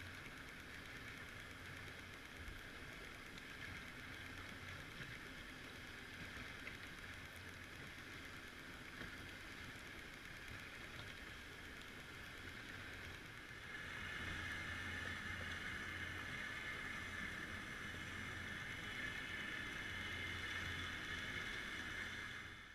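Steady underwater hiss with a faint low hum, as picked up by a submerged camera. It grows louder about fourteen seconds in.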